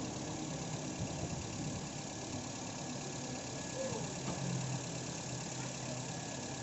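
2004 Toyota Avanza engine idling steadily after its valve timing has been reset to suit the swapped-in VVT-i cylinder head and camshaft.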